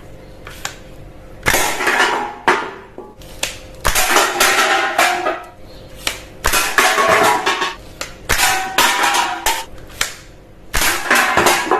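Toy gun being worked and fired: a string of sharp clacks and short noisy bursts of firing sound, each under a second long, with brief gaps between them.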